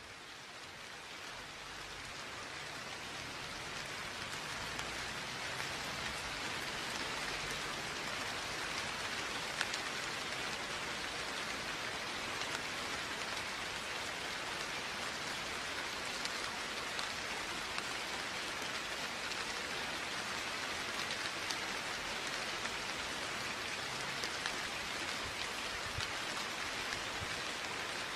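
Steady rain falling, with scattered sharper drop ticks. It fades in over the first few seconds, then holds level.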